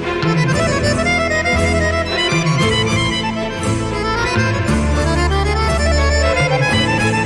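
Easy-listening orchestral tango music, with violins and accordion carrying the melody over sustained bass notes.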